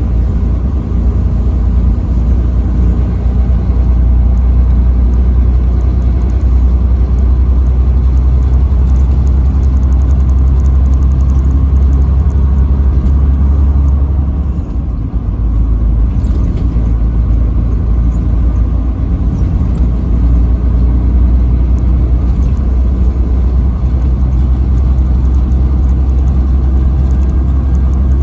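Steady low rumble of a truck driving at highway speed on the interstate: engine and road noise. It dips briefly about halfway through, then carries on as before.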